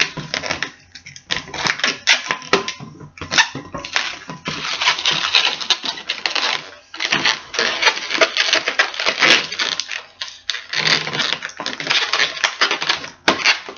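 Inflated latex 260 twisting balloons being handled and tied: their skins squeak and rub against hands and each other. The sound comes in bursts of dense, crackly rubbing with short pauses between them.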